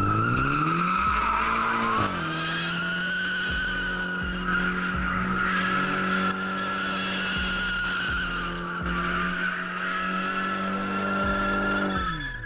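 A car spinning its rear tyres at a car meet: the engine revs up over about two seconds and is held at steady high revs while the tyres squeal. The revs and the squeal fall away near the end.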